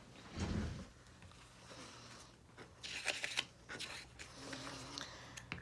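Paper being trimmed with scissors, with rustling and short scratchy snips, the busiest about three seconds in.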